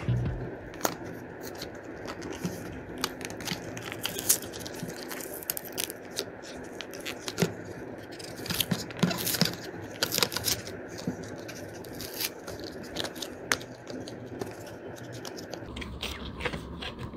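A plastic blister pack around a Molotow masking liquid marker being pried and torn open by hand: scattered sharp crackles, scrapes and clicks of stiff plastic and card, over a faint steady hiss. The sound cuts off abruptly near the end.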